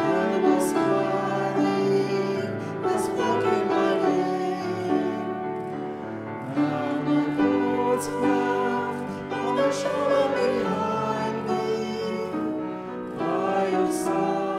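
Congregation singing a hymn, with piano accompaniment.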